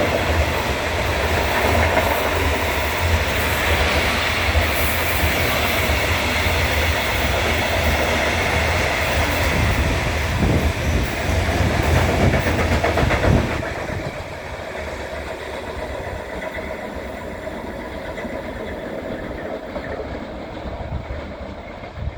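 Freight train of Eas open wagons rolling past at speed with a loud, steady rumble and wheel knocks. About 13 seconds in the sound drops sharply as the end of the train passes, and a quieter receding rumble carries on.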